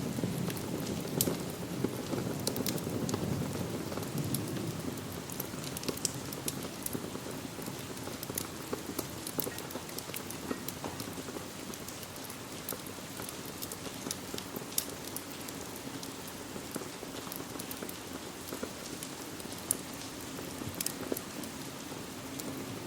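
Steady rain with scattered, irregular sharp crackles and pops, as from a wood fire burning in a fireplace.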